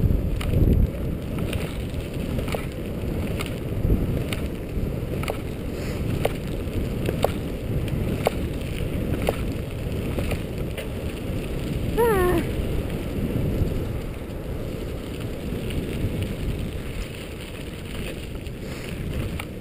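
Mountain bike rolling fast over a gravel trail: steady tyre noise with clicks and rattles from the bike jolting, and wind on the microphone. About twelve seconds in, a short high call falls in pitch.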